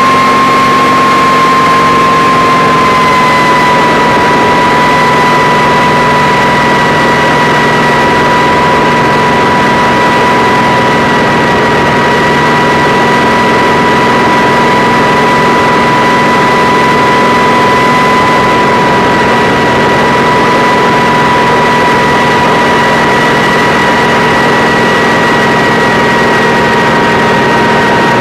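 Kamov Ka-26 helicopter with its two nine-cylinder radial piston engines running steadily under load. A loud, steady high whine over the engine noise dips slightly in pitch about three seconds in.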